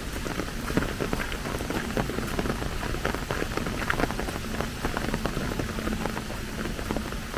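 Steady rain falling, with many sharp individual drops striking close by.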